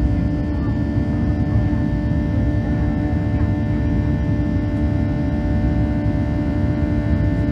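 Boeing 737-800's CFM56 turbofan engines running steadily at high power, heard inside the passenger cabin: a heavy low rumble under a set of steady whining fan tones.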